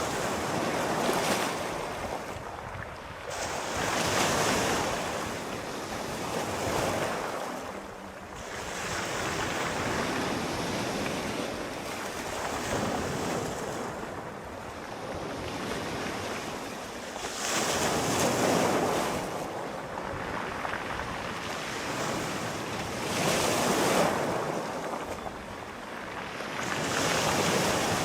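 Sea waves breaking and washing in on a shore, a wash of surf that swells and fades every few seconds.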